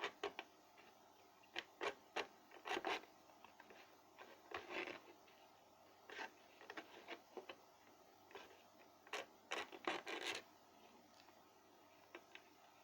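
Hands working on a kettle under repair: irregular clicks and knocks with short scraping rubs, busiest about three seconds in and again near ten seconds.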